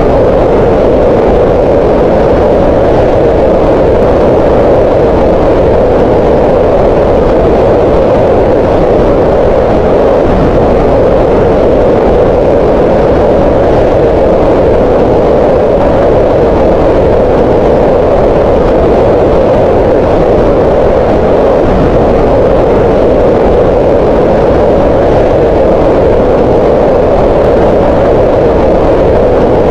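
Green noise: a steady hiss with no rhythm or pitch, loudest in the middle range around 500 Hz and rolled off in the lows and highs. It runs at an unchanging level.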